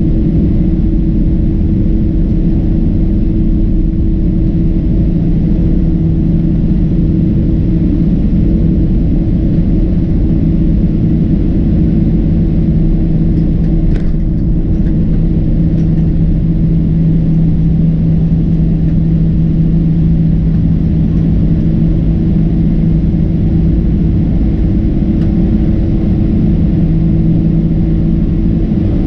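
Boeing 767-300ER engines at takeoff power heard from inside the cabin during the takeoff roll and initial climb: a loud, steady rumble with a steady low drone. A brief click about halfway through.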